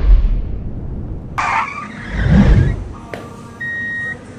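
Low rumbling and a brief hiss, then near the end a steady high electronic beep of about half a second, the first of an evenly repeating series like a vehicle's reversing alarm.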